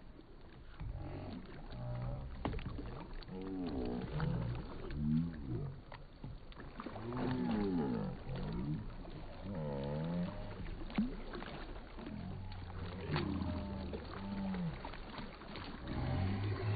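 Drawn-out voices without clear words, rising and falling in pitch again and again, over a low rumble.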